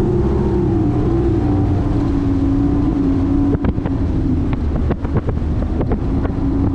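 Bass boat's outboard motor running steadily at speed, with wind on the microphone. A series of sharp knocks comes in the middle.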